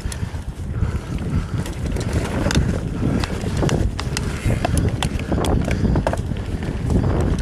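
Commencal Meta TR29 mountain bike rolling along a dry dirt singletrack: steady wind rush on the microphone and tyre rumble over dirt, with many sharp clicks and rattles as the bike jolts over bumps.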